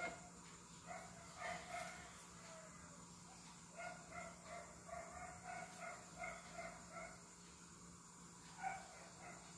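A domestic animal's short, repeated pitched calls, faint, in runs of about three a second, with the longest run in the middle, over a faint steady low hum.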